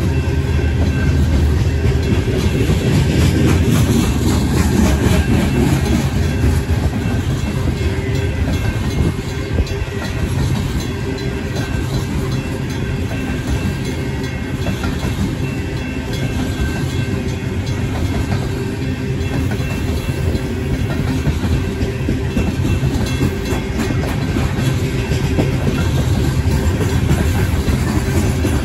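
The cars of a long Union Pacific coal train rolling through a grade crossing at a fairly slow pace, a continuous rumble of wheels on rail, with the crossing bells ringing throughout.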